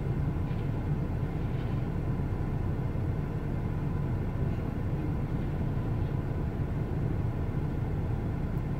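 Steady low engine rumble heard from inside a stopped car's cabin, even in level throughout.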